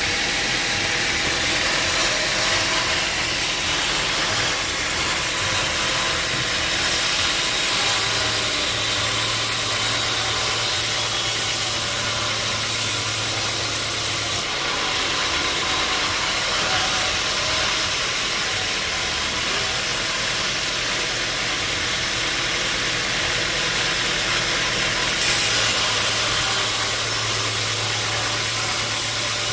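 Sawmill machinery running with a steady, loud mechanical noise and a low hum. The sound changes abruptly a few times.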